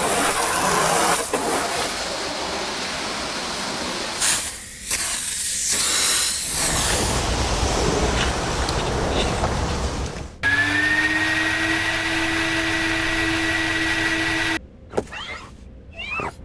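Car-wash sounds: a long spell of hissing spray, then a steady machine whine that rises briefly as it starts and cuts off suddenly, then a few quick whooshes near the end.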